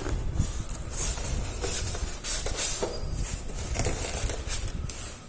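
Polystyrene foam packing and a cardboard carton being handled while unpacking a microwave oven: irregular rustling and scraping.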